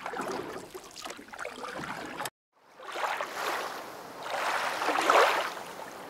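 Water sound effect, a rushing wash that stops abruptly about two seconds in. After a short gap it swells up again and is loudest about five seconds in.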